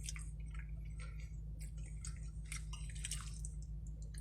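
A man chewing a mouthful of spaghetti close to the microphone: a run of short, irregular smacking mouth clicks over a steady low hum.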